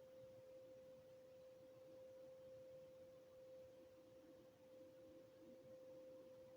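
Faint, steady single-pitched drone, a distant hum that the recorder takes to be industrial noise.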